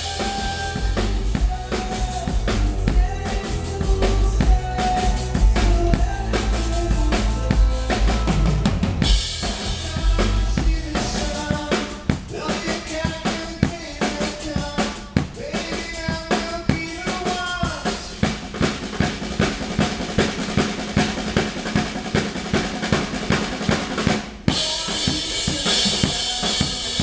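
Live rock band playing at a sound check: a drum kit keeps a steady beat of kick, snare and rimshots under bass and pitched instruments. Heavy bass dominates the first third; cymbals wash in about a third of the way through and again near the end.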